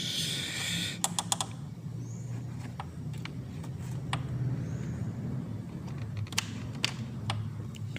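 Small sharp clicks and rattles of blade fuses being handled and pulled from a motorcycle's fuse box, with a brief rustle in the first second and a cluster of clicks about a second in. A steady low hum runs underneath.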